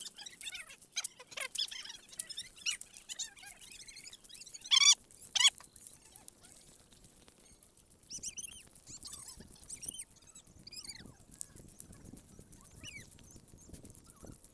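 Birds chirping and calling, with two loud, sharp calls about five seconds in.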